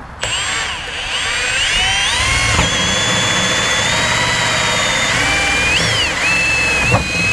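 Cordless drill driving a hole saw through the plastic wall of a garbage can, the cutting making a high whine that wavers up and down in pitch and then holds steadier. It starts a moment in.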